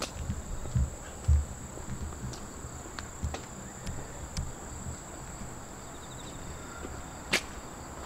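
Insects trilling in a steady, high-pitched chorus. A few low thuds of footsteps come in the first two seconds, and a single sharp click near the end.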